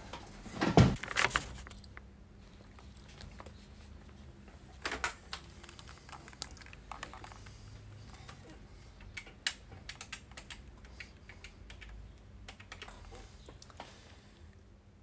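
Irregular keystrokes of typing on a keyboard, spaced out with pauses, after a louder knock and rustle about a second in.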